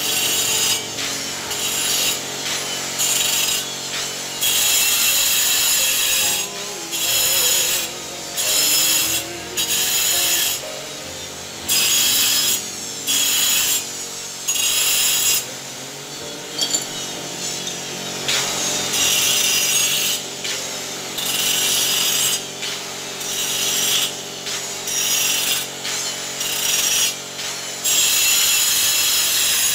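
A hand tool scraping over the stone and cement of a wall mosaic in repeated strokes, roughly one a second, over a steady low hum.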